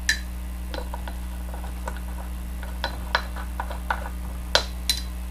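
Scattered light clicks and taps, about a dozen, from small metal fly-tying tools and the vise being handled. The loudest come just after the start and twice around four and a half to five seconds in, over a steady low hum.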